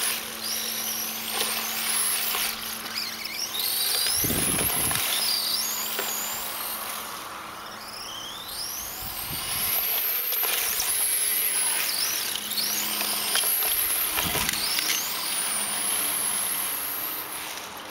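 High-pitched whine of an electric RC car's 9T brushless motor and belt drive, gliding up and down in pitch again and again as it is throttled and backed off through corners. Three short low thumps come at about 4, 9 and 14 seconds in.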